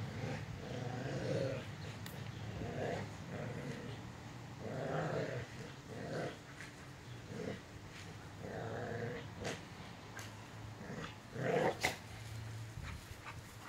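Dogs growling in play while tugging and wrestling over a ball, in short rough growls every second or so, loudest near the end.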